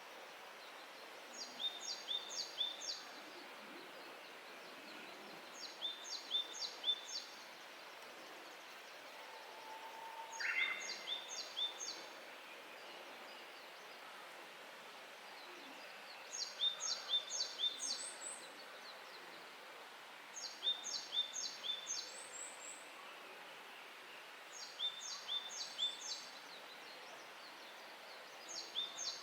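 A Japanese tit sings its two-note 'tsupi' phrase in six short bouts of three or four repeats, each bout a few seconds apart. A Japanese bush warbler gives one 'hoo-hokekyo' song about ten seconds in: a low whistle, then a quick higher phrase. Both sing over a steady background hiss.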